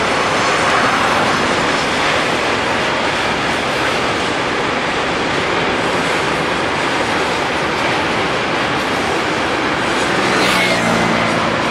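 Freight train of tank wagons and container wagons rolling past, a steady rush of wheels on rail. Near the end a low steady hum joins in.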